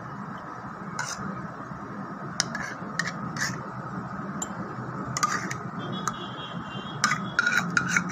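Spoon scraping yogurt out of a plastic tub into small glass tumblers, with scattered light clicks and knocks of the spoon and tub against the glasses, over a steady low hum.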